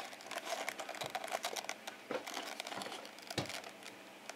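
Light rustling and scattered small clicks and taps of objects being handled close by, with a few firmer taps.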